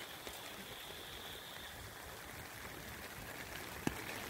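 Steady heavy rain falling on floodwater. A faint high trill runs through the first two seconds, and there is a single tap near the end.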